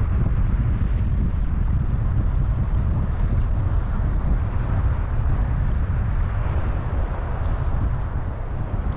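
Steady wind buffeting the microphone: a continuous low rumble with a hiss over it.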